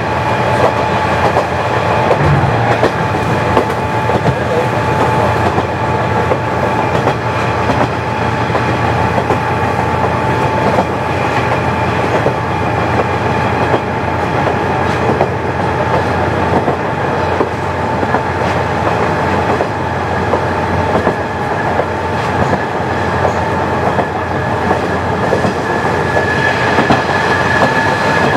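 KiHa 40 diesel railcar running steadily along the line: diesel engine and running noise with the clickety-clack of wheels over rail joints and a thin steady whine, a higher whine joining near the end.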